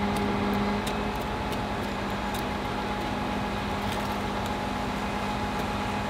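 Mack NR logging truck's engine running steadily with a hum and a steady whine. About a second in the low hum eases while the higher whine carries on, with a few faint ticks.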